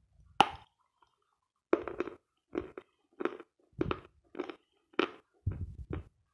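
A bite into a chunk of dry 'Sloyka' eating chalk about half a second in, then the chalk being chewed with short dry crunches about twice a second.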